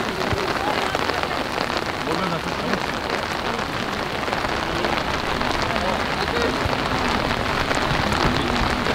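Steady rain falling, a dense even patter, with faint distant shouts.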